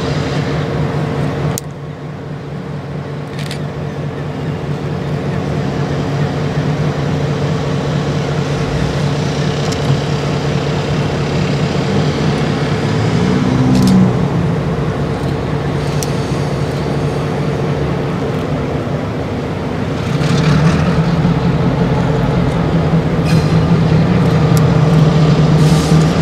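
Diesel-electric locomotive engine running with a steady low hum as the locomotive moves slowly, growing louder from about twenty seconds in as it draws nearer. A few short sharp clicks sound over it.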